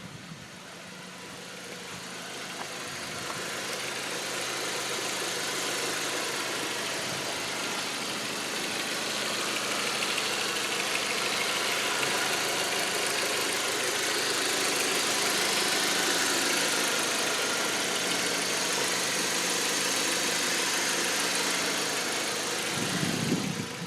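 A 2005 Audi 1.8T turbocharged four-cylinder engine running with a fast, crackly popcorn-like rattle from around the alternator, a noise that comes only when the car is in gear under load. The owner wonders whether a failing water pump or alternator is the cause. A brief low thump sounds near the end.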